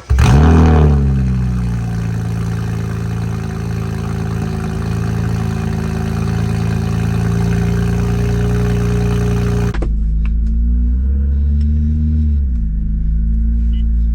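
BMW 135i's N54 twin-turbo straight-six, its muffler removed, starts up: it flares high and settles within a second or two into a steady, loud idle. About ten seconds in the sound changes abruptly, and the engine gives one brief, gentle rev that rises and falls.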